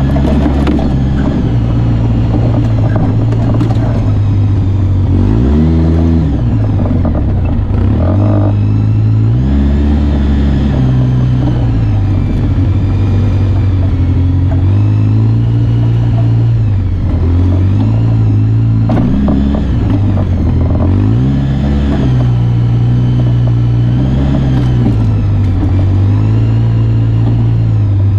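An off-road vehicle's engine running under load on a dirt trail, its pitch rising and falling again and again as the throttle is worked. There is a sharp drop and climb about six seconds in, and again near eight and a half seconds.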